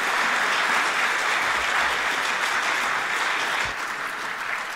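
Audience applauding, a steady clapping that dies away toward the end.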